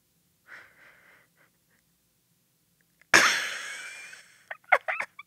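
A woman laughing behind her hand: faint wheezing breaths, then a sudden loud burst of laughter about three seconds in that fades away, followed by a run of short, quick laughs.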